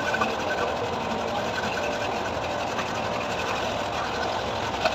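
A machine running steadily with a fast, even mechanical clatter.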